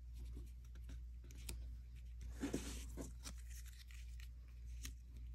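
Paper and cardstock pieces being handled on a craft table: faint scattered taps and clicks, with a brief papery rustle about two and a half seconds in.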